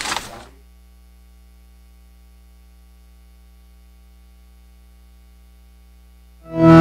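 Steady low electrical mains hum from the sound system, heard alone for about six seconds between pieces of music. The previous music cuts off in the first half-second, and new music starts abruptly near the end.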